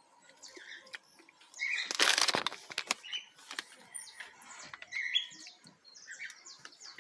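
Small birds chirping in short high calls, with a loud flutter of wings about two seconds in.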